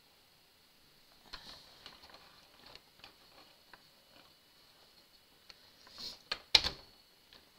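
Scattered light clicks of hand work on a Brother 930 knitting machine's needle bed and garter carriage, with a few louder clacks near the end, one of them much the loudest.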